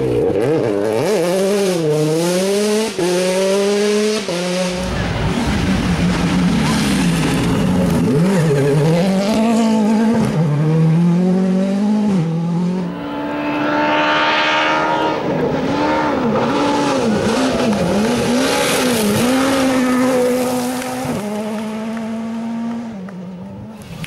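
Rally cars at speed on a gravel stage, engines revving hard and dropping back through gear shifts and into corners, in several successive passes with gravel and tyre noise over the engine.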